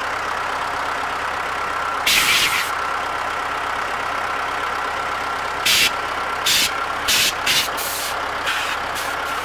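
Compressed-air blow gun firing into a clogged mower radiator: one half-second blast about two seconds in, then a string of short puffs from about six seconds on, as the air pressure keeps dropping and the gun only gives brief bursts. Under it, the steady idle of the ZIL 'Bychok' truck engine that feeds the air.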